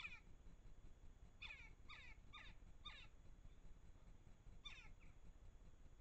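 Faint bird calls, each a short call that slides downward in pitch: one at the start, a quick run of four about a second and a half in, and one more near the end.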